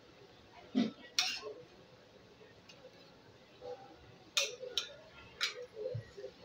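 About five short, sharp clicks at uneven intervals, a pair near the start and three more later on, with faint voices in the background.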